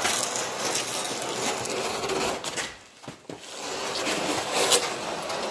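Wooden roof truss dragged across a concrete floor: a rough scraping in two long pushes, broken by a short pause about three seconds in.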